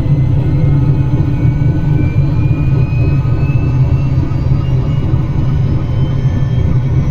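Bell 47 helicopter running steadily: its piston engine and rotor make a loud low rumble, with a faint whine that rises slowly in pitch.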